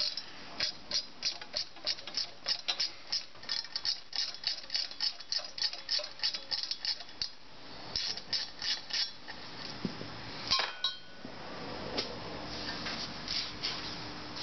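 Rapid metallic clicking, about four clicks a second, of a hand tool working a bolt on a BMW rear brake disc held in a vise; it stops about nine seconds in and is followed by a single metal clink.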